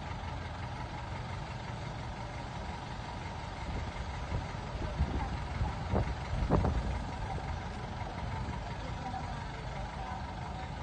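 A vehicle's engine running with road noise as it drives slowly along a paved road, a steady low rumble, with a few short knocks about five to seven seconds in.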